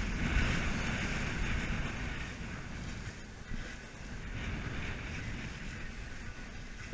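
Wind buffeting the microphone over the rushing hiss of sea water around a sailboat under way; the rush swells in the first second and again around the middle.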